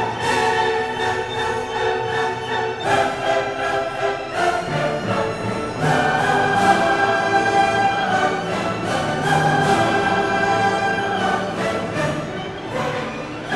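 Orchestral classical music with held string chords that change every second or two.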